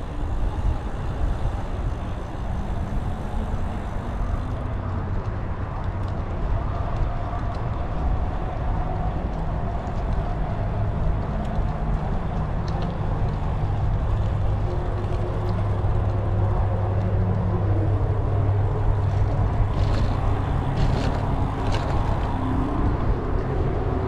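Riding a bicycle on a paved trail: wind on the microphone and tyre noise make a steady low rumble, with a few faint clicks near the end.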